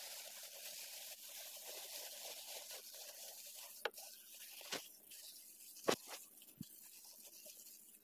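Clear plastic bag rustling and crinkling as it is handled, with a few sharp crackles around the middle.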